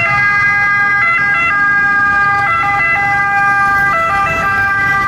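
Ambulance siren: steady electronic tones that switch pitch in abrupt steps every second or so.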